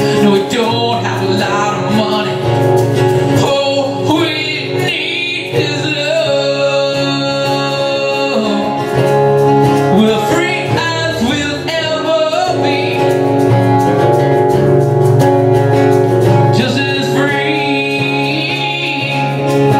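A man singing lead over two acoustic guitars being strummed, a small live acoustic band playing a song.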